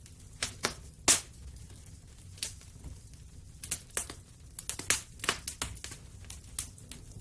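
Wood fire crackling in a fireplace: irregular sharp pops and snaps, the loudest about a second in and a quick cluster in the middle, over a steady low rumble of the burning fire.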